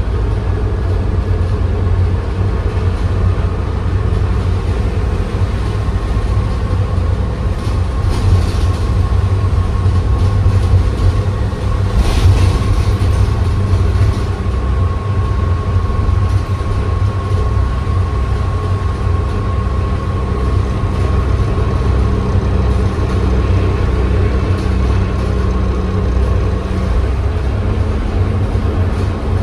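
Transit bus driving, heard from inside the passenger cabin: a steady low engine and road drone with a faint steady whine over it. A short rush of noise comes about twelve seconds in.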